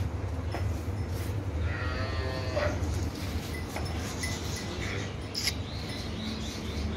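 A cow or calf lows once, about two seconds in, for about a second, over a steady low rumble.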